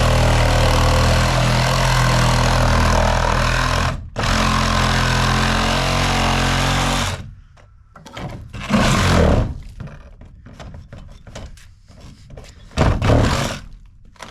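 A power tool running steadily under load with a low hum, stopping for a moment about four seconds in and then running again until it stops about seven seconds in. After that there is quieter working noise, with two short louder bursts.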